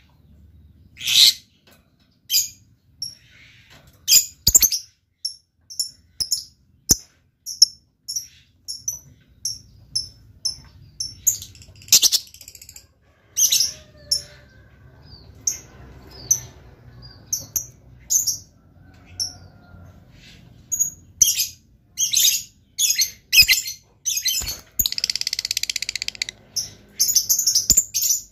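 Lovebird calling: a long run of short, shrill chirps, one or two a second and quickening near the end, broken by a fast rattling trill shortly before the end.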